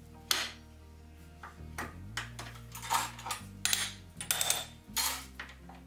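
Hand-lever turret punch press clanking as holes are punched in sheet metal, about six sharp metallic hits. Background music with low held notes runs underneath.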